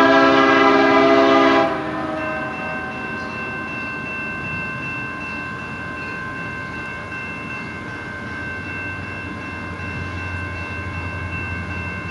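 Locomotive air horn sounding a loud chord of several notes that cuts off about a second and a half in. Fainter steady high tones go on after it, and a low rumble of the train grows from about eight seconds in.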